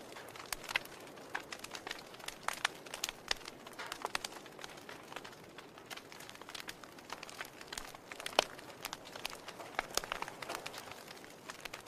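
Wood fire burning in a fireplace: logs crackling with irregular sharp pops over a soft steady hiss, one louder pop a little over two-thirds of the way through.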